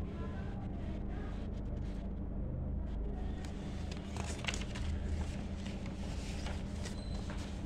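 Notebook paper rustling and crinkling as a page is handled and turned over, starting about three seconds in, over a steady low hum.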